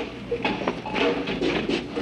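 Upbeat background music with a steady, clattering percussive beat and short sustained notes.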